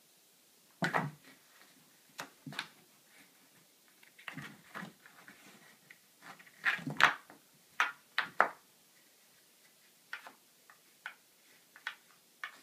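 A cat pawing at a toy mouse under a closed door: irregular taps and knocks of paw and toy against the door and hardwood floor, loudest in a quick cluster about seven seconds in.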